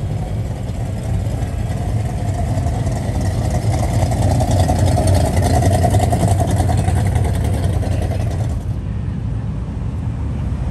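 A late-1960s Ford Fairlane driving slowly past with a deep exhaust rumble and a rough crackle, swelling to its loudest about halfway through as it passes close. Near the end, the sound drops suddenly to a lower steady engine rumble as another car comes by.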